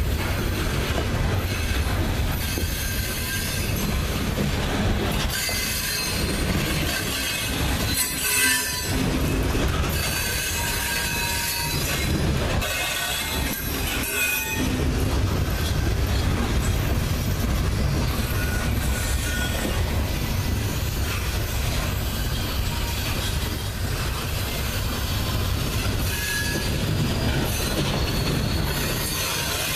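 Loaded open-top coal cars of a freight train rolling past on a curve: a steady rumble of steel wheels on the rails, with high-pitched wheel-flange squeal coming and going over it.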